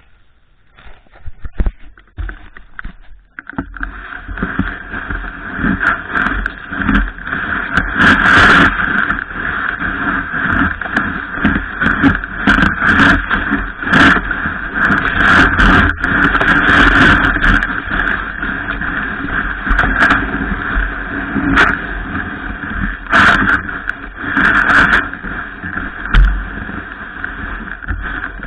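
Loud, steady rushing noise that starts about three and a half seconds in, with scattered knocks and swells: a snowboard sliding over snow, with wind on the microphone.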